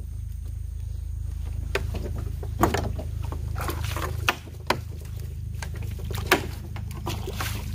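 Small boat's engine idling with a steady low pulsing hum, while a gill net is hauled in over the metal gunwale: several sharp knocks against the hull and water splashing and dripping off the net.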